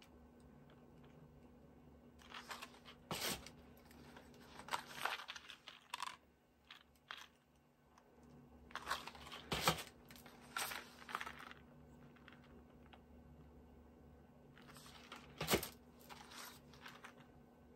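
Small cardboard boxes of press-on nails being handled and swapped: scattered soft rustles and taps of the packaging, with three sharper clicks spread through.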